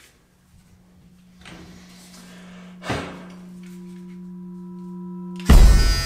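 Electric foil shaver running with a steady hum that slowly grows louder. Near the end comes a sudden loud clang that rings on and slowly dies away.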